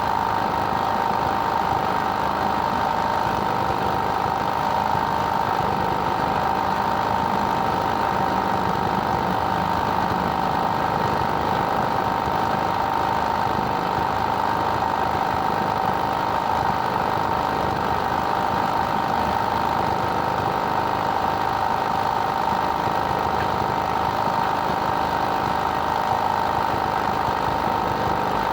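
A machine running steadily and loudly, a constant engine-like drone with a strong mid-pitched hum that never changes or pauses.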